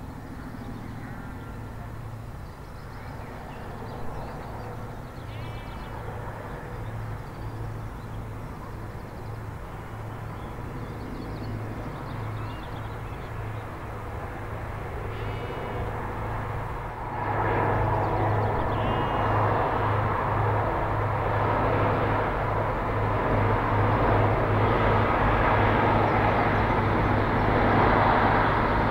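InterCity 125 High Speed Train's diesel power cars running past at a distance: a steady low engine drone, with birds chirping now and then. About two-thirds of the way through it turns suddenly louder and fuller as the train comes nearer, and keeps building towards the end.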